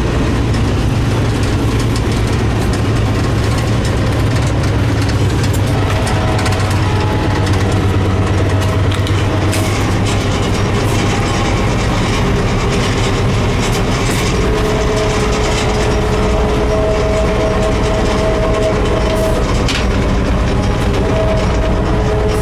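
Steady, loud drone of a running diesel locomotive heard from inside it, with a low hum and, partway through, a steady whine joining in.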